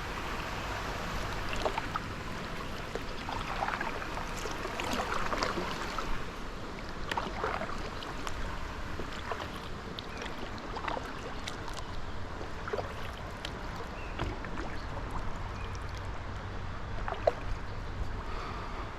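Water splashing and dripping around a kayak as it is paddled, with irregular small splashes over a steady wash of water noise and a low rumble underneath.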